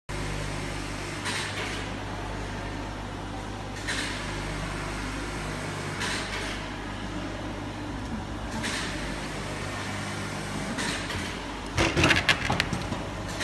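DM1415 mini-oil single-needle lockstitch industrial sewing machine running with a steady hum, with a soft swish about every two and a half seconds. Near the end there is a quick run of clattering knocks as the machine is handled.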